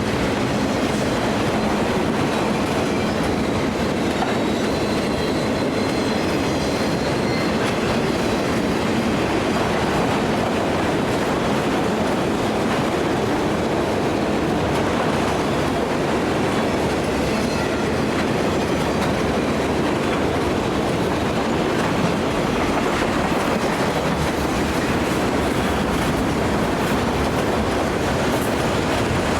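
A train rolling steadily past on the tracks: a continuous rumble and rattle of cars and wheels on the rails, with no horn.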